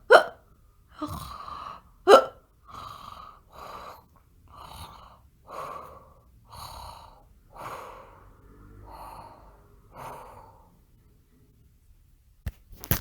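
Breathing sounds voiced for a sleeping lion cub: two sharp, loud gasp-like breaths near the start, then slow, regular breaths about once a second that grow fainter and stop, followed by two short sharp clicks near the end.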